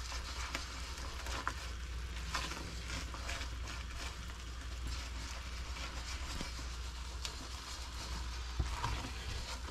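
Spatula stirring and scraping a thick mixture of condensed milk, ghee and powdered milk in a hot wok, with a faint sizzle and scattered light scrapes. A low steady hum runs underneath.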